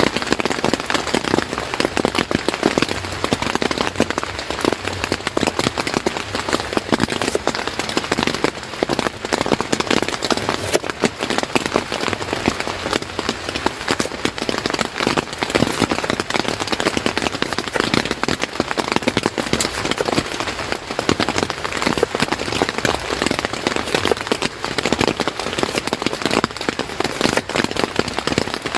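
Steady heavy rain, with many close drops striking a surface in an even, dense patter.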